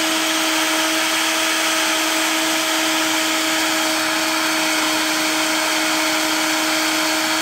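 Philips SalonDry Compact hair dryer running steadily: a rush of air over a low, even motor hum. It is blowing hot air onto a sneaker's foam midsole to soften it so the creases come out.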